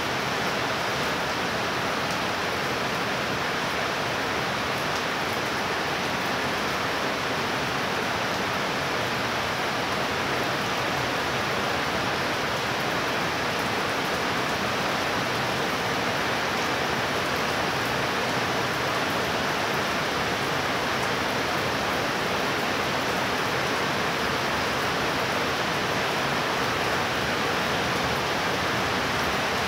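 Heavy rain falling steadily, an even hiss that holds at the same level throughout.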